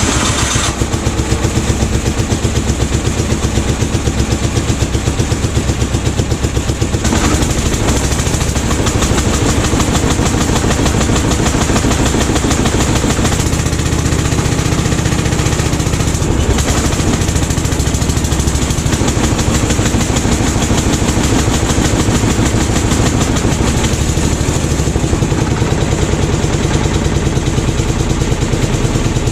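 John Deere Gator's old carbureted single-cylinder engine running on choke with a steady, rapid pulse, just after a cold start. It is warming up, which the owner says takes 5 or 10 minutes before it will stay running.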